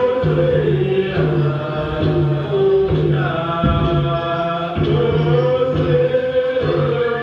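Music with chanted group singing, in the style of traditional Papuan dance music.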